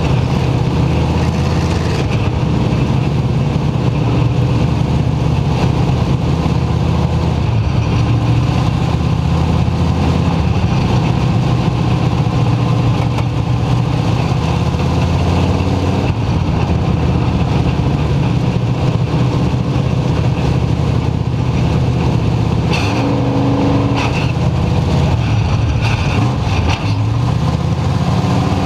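Dirt-track race car engine running loud at racing speed, heard from inside the cockpit.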